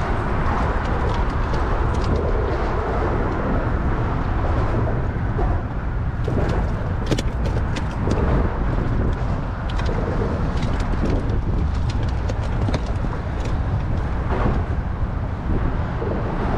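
Steady wind rumbling on the microphone aboard a small open boat, with a few brief knocks and clicks from a striped bass being handled and unhooked on the deck.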